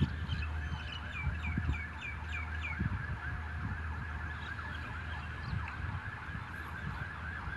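Electronic level-crossing warning alarm sounding a fast, steady warble, signalling that a train is about to pass. A bird chirps a quick string of short notes in the first few seconds.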